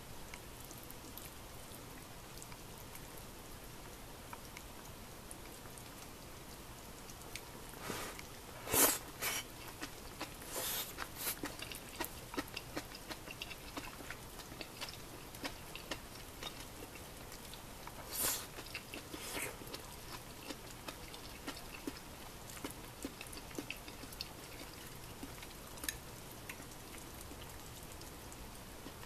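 Close-up eating sounds: faint chewing and clicks of wooden chopsticks against a ceramic bowl, with a few louder short slurps or bites about a third of the way in and again past the middle.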